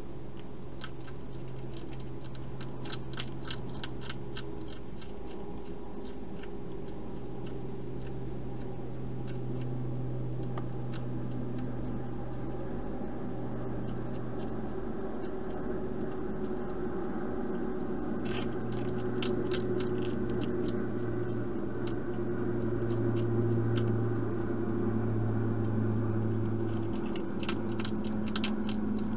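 European hedgehog chewing its food: three runs of quick, crisp clicks, about a second in, midway and near the end, over a steady low hum.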